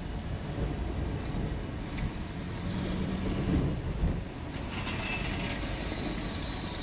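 Steady low rumble of a car's engine and tyres, heard from inside the cabin while creeping through city traffic.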